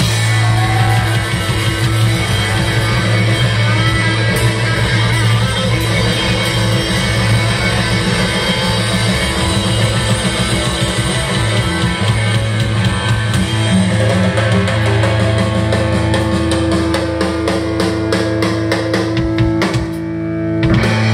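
Live rock band playing loud, continuous music on guitar and drum kit.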